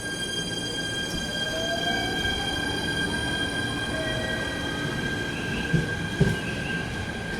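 Inside a moving commuter train carriage: a steady running rumble from wheels and track with a steady high whine above it and a tone rising slowly in pitch early on. Two short knocks come near the end.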